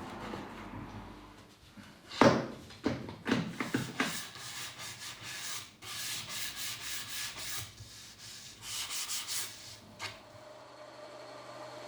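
Hand sanding: a few knocks, then quick back-and-forth rubbing strokes in two runs. A steady hum takes over near the end.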